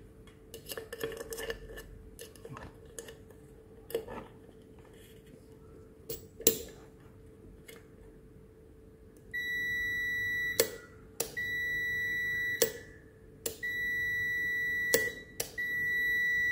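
A multimeter's continuity beeper sounds in several long steady high-pitched beeps from about nine seconds in, cutting in and out as the probes make and break contact on the kettle base connector's freshly cleaned copper contacts: the contacts now conduct. Before that there are light clicks and taps of the probes on the plastic connector.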